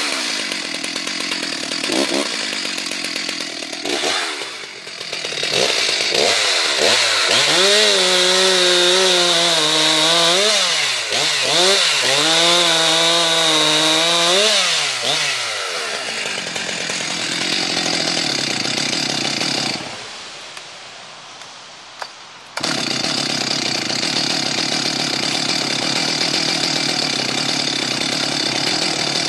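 Stihl MS 361 two-stroke chainsaw cutting through a log, its engine note sagging and recovering again and again under load, then dropping off about fifteen seconds in. After a short quieter spell, a steady, even running sound sets in abruptly and continues to the end.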